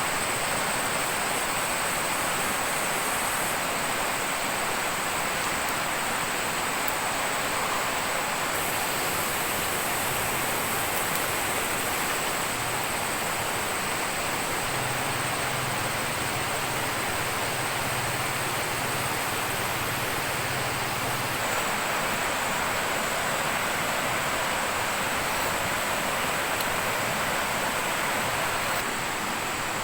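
Steady rushing water noise, even and unbroken throughout.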